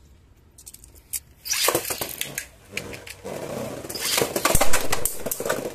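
Beyblade tops being launched into a plastic stadium: quiet at first, then plastic clicking and rattling from about a second and a half in, with a sharp knock a little past halfway as the tops go in and start spinning and skittering on the plastic.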